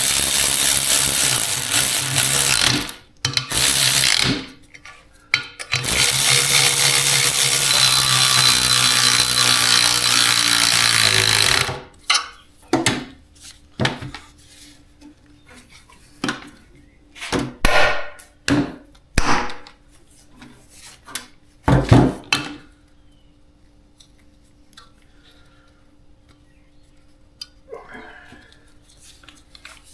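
A power tool runs in two long stretches, then a series of sharp metal taps and clinks follows as the valve springs and keepers are worked off an LS cylinder head.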